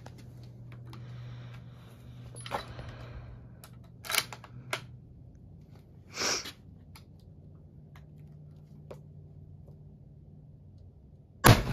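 Gras single-shot bolt-action rifle being handled and loaded: a few sharp metallic clicks and a short rasp of the bolt. Near the end it fires one very loud black-powder shot, followed by a long echo.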